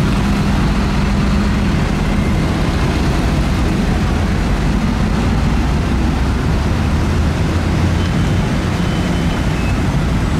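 Road traffic with heavy diesel truck engines running, a steady loud low hum with no sudden events.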